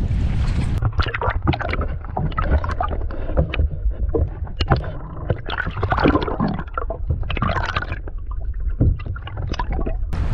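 Water sloshing and gurgling around a kayak, with irregular splashes. The steady wind noise drops out about a second in, leaving the close, muffled water sounds.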